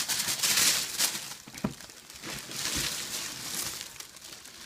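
Plastic packaging crinkling and rustling in irregular waves as it is handled and unwrapped, with a sharp tick about a second and a half in.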